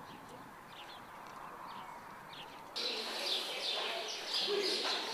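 Birds chirping. At first there are scattered short calls over a faint hiss; about two and a half seconds in, the sound jumps louder into dense, continuous twittering with a busier background under it.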